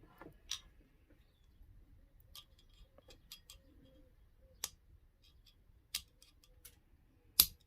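Sparse sharp clicks and taps of small steel pistol parts being worked into a CZ 75 SP-01 frame, with the loudest tap near the end.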